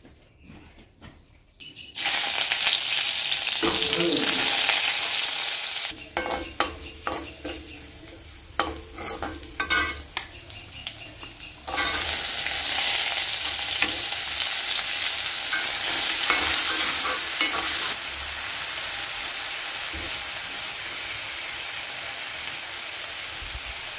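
Hot oil sizzling in an aluminium wok. A loud sizzle starts suddenly about two seconds in, and again about twelve seconds in as diced potatoes are tipped in, before settling to steady frying. In between come sharp clicks and scrapes of a steel spoon stirring against the pan.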